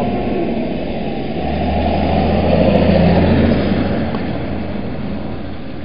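Diesel engine of a large blue four-wheel-drive tractor driving past, growing louder to a peak about three seconds in and then fading as it pulls away.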